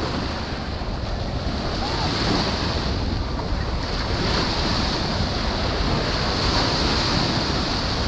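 Small sea waves breaking and washing up a sand beach in a continuous hiss, swelling a little louder partway through. A low, choppy wind rumble on the microphone runs underneath.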